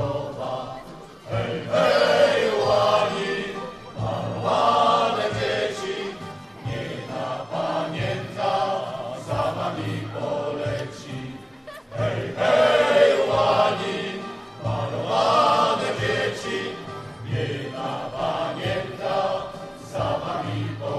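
Choir singing a Polish patriotic song with accompaniment, in phrases a few seconds long that swell and fade.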